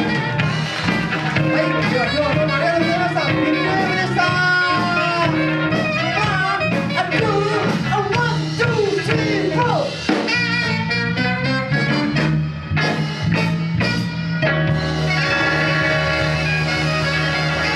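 Live band playing: a saxophone melody winds over bass and drums, then a run of drum hits about ten seconds in leads to a held closing chord.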